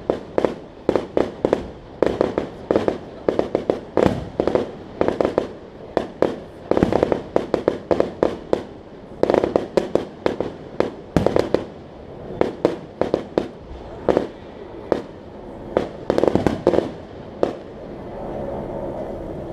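Fireworks going off in rapid, irregular volleys of sharp bangs, each with a short echo. The bangs stop near the end, leaving a steady rushing noise.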